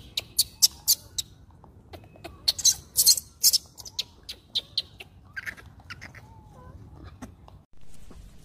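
Macaques giving a rapid run of short, sharp, high squeaks, loudest and thickest about three seconds in, with a few fainter low calls between them.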